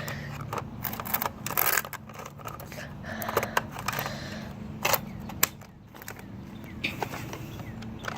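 Irregular plastic clicks and scrapes of a Nerf Rival Apollo blaster and its magazine being handled, with a steady low background hum.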